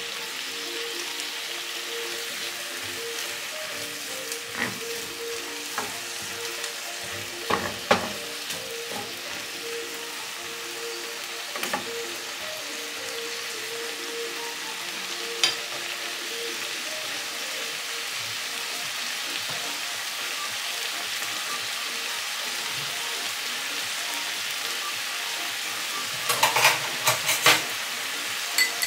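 Sliced red onion sizzling in hot oil in a frying pan, steady and hissing, with a wooden spoon stirring and scraping it now and then. A few sharper knocks come near the end.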